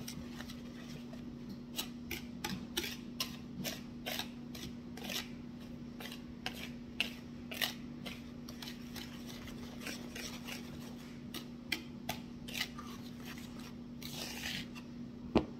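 Metal wire whisk stirring dry flour mixture in a plastic mixing bowl, its wires clicking and tapping against the bowl several times a second at an uneven pace. A steady low hum runs underneath, and a single louder knock comes just at the end.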